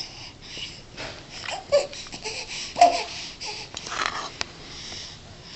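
Baby babbling in short vocal sounds, with two brief squeaks a little under two seconds and about three seconds in, between soft breathy noises.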